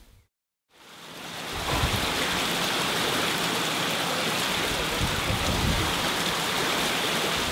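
Wastewater rushing and churning against a treatment plant's bar screen: a steady, dense rush of water that fades in after a moment of silence about a second in.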